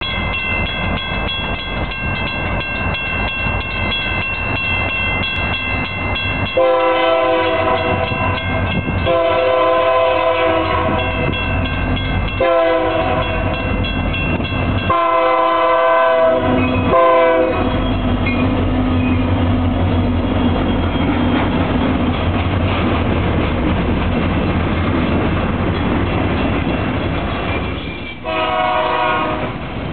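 A Union Pacific diesel locomotive's horn sounds four blasts for a grade crossing, long, long, short, long, over steady crossing-signal ringing. The stack train then passes with engine rumble and wheels clicking on the rails. One more horn blast comes near the end.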